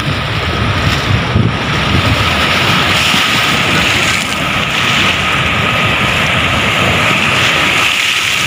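Steady rushing of floodwater released through a dam's open spillway gates and racing down a swollen river, with wind buffeting the microphone.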